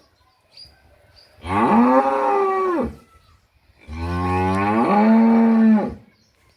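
Dairy cattle mooing: two long moos, the first about a second and a half in, the second starting lower and held steady for about two seconds before dropping away.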